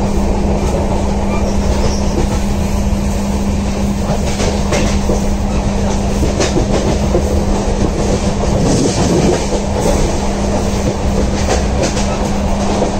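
Mandavi Express passenger train running, heard from inside a coach: a steady rumble with a low hum, and scattered clicks of the wheels over rail joints.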